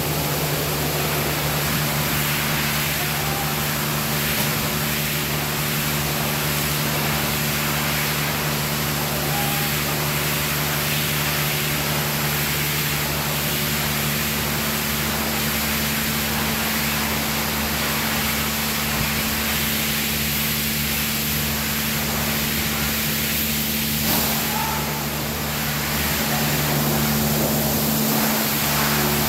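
Tank-container washing equipment running: a steady machine hum with a constant hiss over it.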